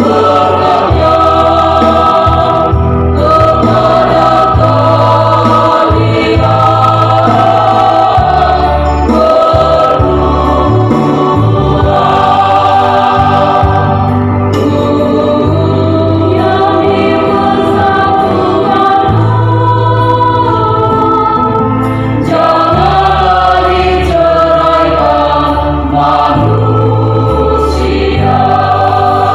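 Mixed choir of women and men singing a church hymn in parts, loud and continuous, holding long chords.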